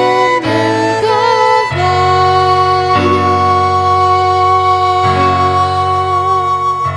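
Band music with no singing: a few short chords, then one long held final chord over a bass note that stops just before the end.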